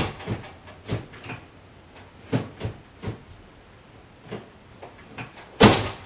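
Irregular knocks and clunks as an over-the-range microwave is shifted against its wall mounting plate and the cabinet above it. The loudest, longest clunk comes near the end.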